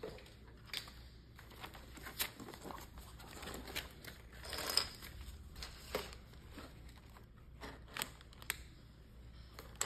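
Scattered light clicks and rustling of plastic Lego pieces being handled and pressed together, with a brief louder rustle about halfway through.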